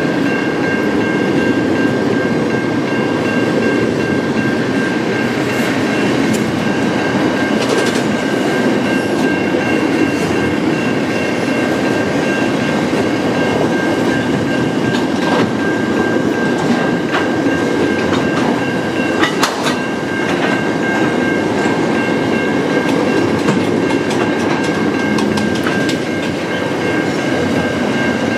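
Container freight train wagons rolling slowly past at close range: a steady heavy rumble with scattered clicks and clanks of the wheels over the rails, and a steady high-pitched ringing tone above it.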